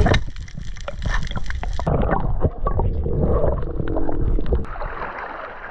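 Underwater sound picked up by a camera submerged on a reef: a low rumble of moving water with scattered sharp clicks and crackles, and a denser patch of sound about three to four and a half seconds in.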